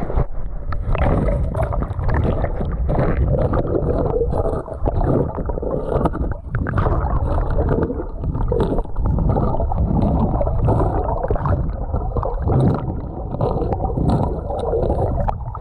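Shallow river water gurgling and sloshing, heard through a GoPro's waterproof housing held under the surface: a dense, muffled rush with scattered small clicks.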